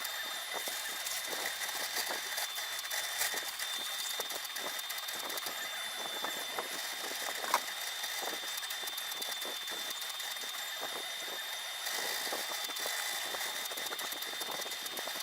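ROBO R1+ desktop 3D printer printing after resuming from a filament change, its stepper motors giving a steady high-pitched whine with fine rapid ticking. A sharper click comes about halfway through.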